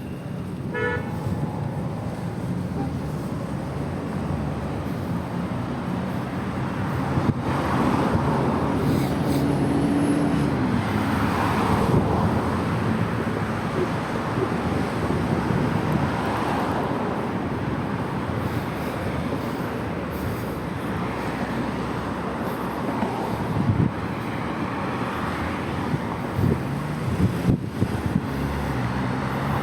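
City road traffic heard from a bicycle: a steady rumble of engines with cars passing one after another, each swelling and fading.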